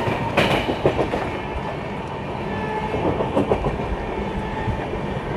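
Express passenger train coach running at about 130 km/h: a steady rumble of wheels on rail, with a few sharp knocks as the wheels pass over rail joints.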